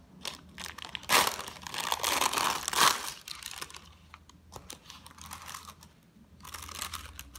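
Parchment paper crinkling and rustling as a slab of soft marshmallow nougat is peeled off it and lifted, with many small crackling clicks. The loudest rustling comes between about one and three seconds in, and there is another burst near the end.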